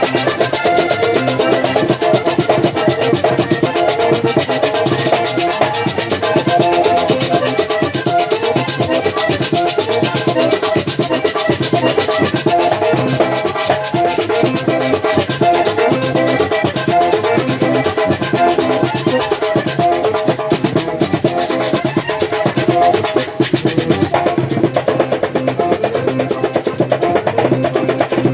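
Vallenato puya played live, an instrumental passage without singing: fast accordion melody over a driving beat of caja drum and guacharaca scraper.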